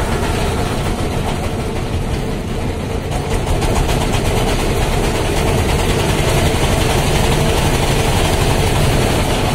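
A motorboat's engine running steadily, with the boat under way on the river.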